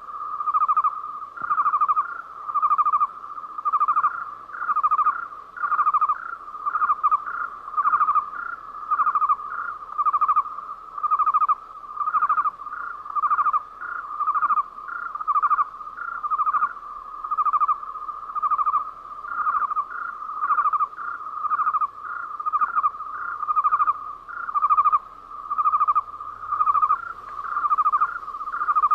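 Cricket-chirping sound effect for a night scene: a rhythmic trilled chirp repeating about once a second, steady and unchanging like a loop.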